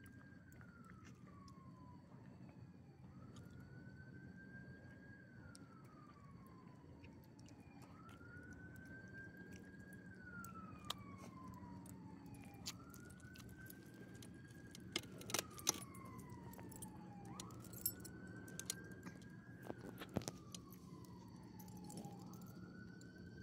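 Faint emergency vehicle siren in a slow wail, each cycle rising quickly, holding, then sliding down, repeating about every four seconds. Sharp clicks and jingles of dog collar tags come in over the second half.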